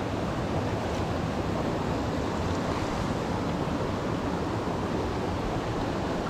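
Steady rush of a small mountain creek's flowing water.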